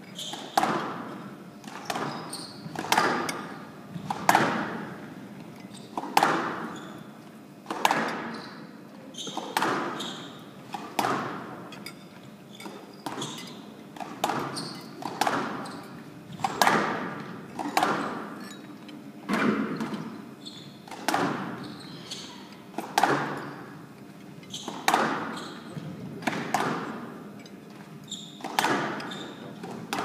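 Squash ball being struck by rackets and hitting the walls of a glass show court in a long rally: a sharp, echoing knock about once a second.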